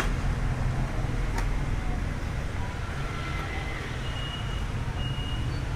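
Steady low rumbling background noise, with a single sharp click a little over a second in and a few faint brief tones.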